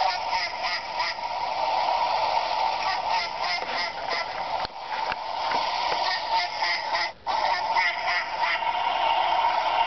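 Recorded goose honking played back from a small handheld device, a dense run of honks used as a lure for waterfowl. It starts abruptly and cuts out briefly twice, about halfway and near three-quarters of the way through.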